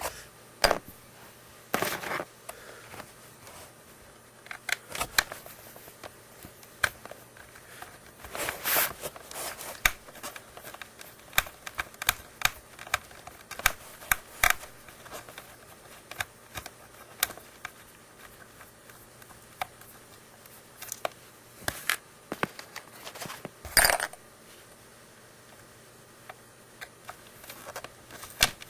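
Small hard plastic parts of an oral irrigator being handled: irregular clicks, taps and knocks, with a louder flurry about a third of the way in and a sharp knock near the end.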